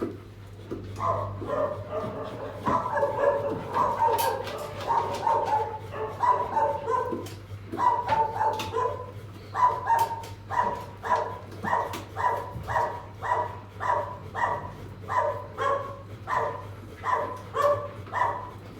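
A dog barking repeatedly: a ragged run of overlapping barks that settles into a steady rhythm of about two barks a second.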